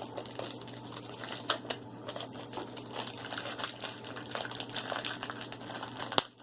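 Crinkly plastic toy packaging being handled and opened, a steady run of small crackles, with one sharp click a little after six seconds in.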